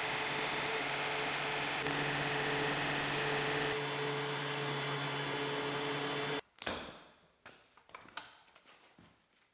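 DeWalt portable band saw (DWM120) running steadily with its blade cutting through steel plate. It stops abruptly about six and a half seconds in, followed by a few light knocks.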